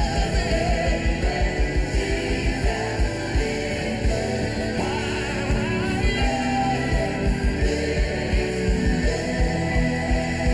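Live gospel worship music: a band plays while voices sing, over a steady, fast, driving drum beat.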